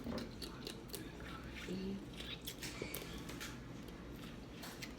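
Crab shells being cracked and picked apart with chewing close to the mic: scattered small snaps and clicks throughout.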